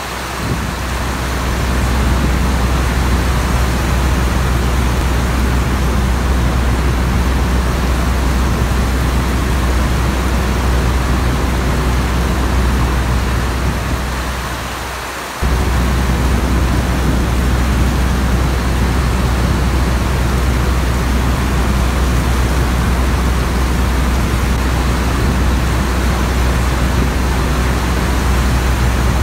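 Steady low drone of a propeller biplane's engine under a dense hiss of rain. About halfway through, the drone and rain fade down briefly, then cut back in suddenly.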